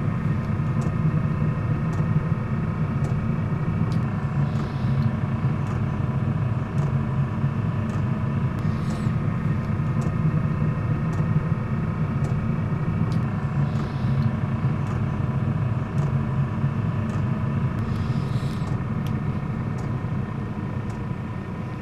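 Chinese diesel air heater running steadily, a low combustion-fan hum and rumble with steady tones over it. The fuel pump's regular ticks come through, the pump's piston moving back and forth; the fuel damper fitted in the fuel line does not change this tick.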